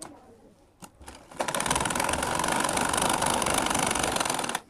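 Singer sewing machine running steadily for about three seconds as it sews a top-stitch seam through cloth, starting about a second and a half in and stopping just before the end. A faint click comes just before it starts.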